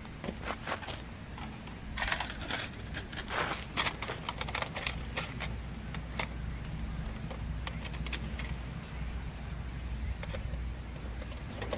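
Irregular clicks and light metallic clatter of a small folding metal camp item being handled and unfolded, busiest a couple of seconds in. A steady low rumble runs underneath.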